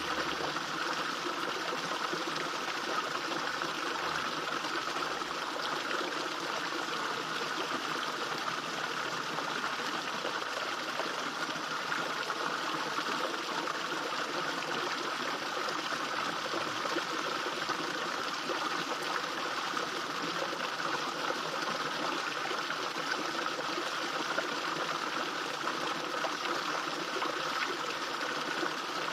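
Small garden fish-pond waterfall, water splashing and trickling steadily into the pond.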